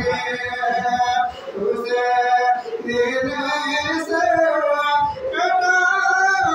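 A man singing a slow, melodic devotional piece into a microphone, holding long notes that slide between pitches, with short breaks for breath.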